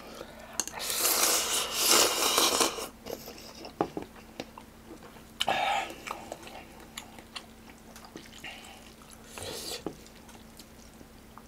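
Instant ramen noodles slurped in a loud draw of about two seconds, then chewed with many small wet clicks. There are two shorter slurps, one near the middle and one near the end.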